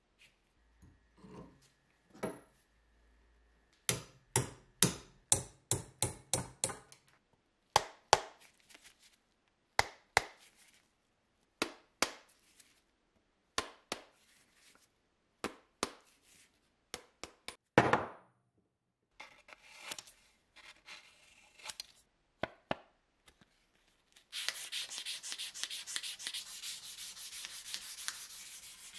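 Sharp blows knocking the old wooden handle out of a steel hammer head: a quick run of about eight blows a few seconds in, then single blows every second or two. Near the end, steady rubbing starts as the hammer head is hand-sanded with 1000-grit sandpaper.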